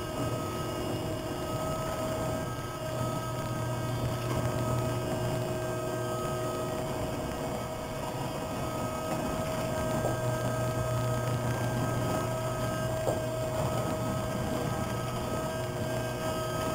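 Hydraulic crowd gate running as it drives forward: a steady mechanical hum with a thin, even whine above it.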